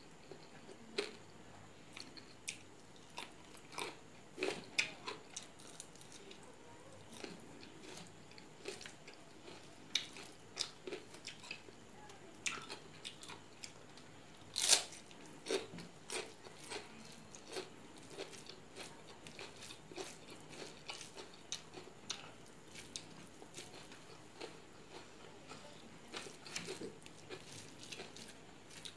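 Close-up eating sounds: chewing and crunching of rice and raw vegetables eaten by hand, with short sharp crunches and mouth clicks at irregular intervals. The loudest crunch, about halfway through, is a bite into a raw cabbage leaf wrapped round rice.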